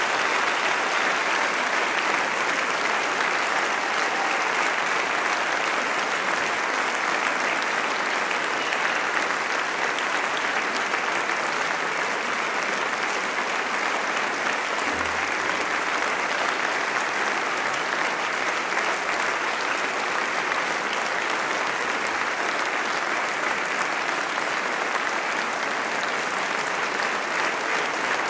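A large audience clapping in steady, sustained applause.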